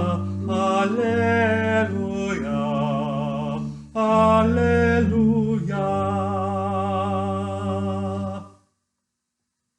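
Hymn singing of the closing alleluias: long held notes with vibrato over steady low sustained chords. The last chord is held and ends about eight and a half seconds in.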